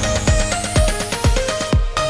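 Electronic dance music with a steady kick-drum beat and stepping synth notes, a rising sweep building up and cutting off just before a new phrase.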